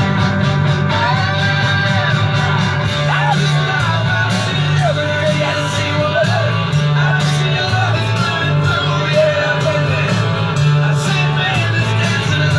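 A rock song playing, with a sung vocal, guitar and bass over a steady beat.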